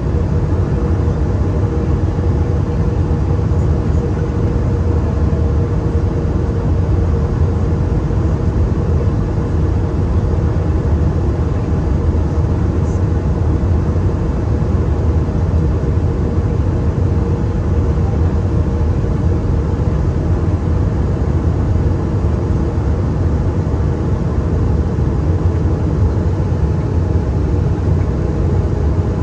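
Steady cabin noise of an Airbus A320-200 in flight: engine and airflow noise, a constant low drone with a faint steady tone in it.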